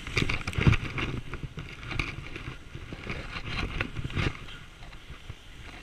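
A person sliding fast on their back down a snow slope: snow hissing and scraping in uneven rushes, with jolting bumps, the heaviest about a second in. It is heard through a chest-mounted GoPro, with clothing rubbing against the camera. The sliding eases off over the last second or so.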